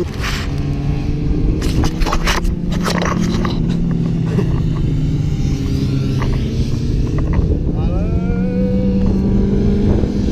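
Racing motorcycles running on the circuit, one accelerating with a rising engine note near the end, under a rough wind rumble on the action camera's microphone. A few sharp knocks from the camera being handled about two seconds in.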